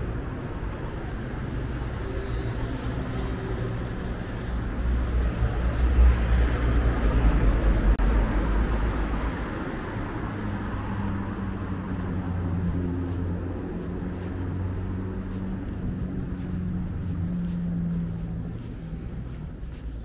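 Street traffic: a motor vehicle passes close by, loudest about six to eight seconds in. A steadier engine hum follows until near the end.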